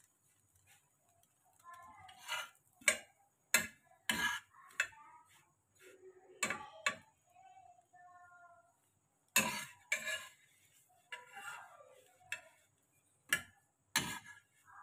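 Metal tongs clinking and knocking against a tawa (flat griddle) as slices of bread toasting in ghee are turned over: about ten sharp clinks at uneven intervals.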